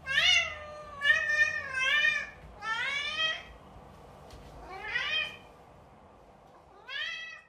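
A long-haired cat meowing repeatedly: six drawn-out meows with short pauses between them, several rising in pitch.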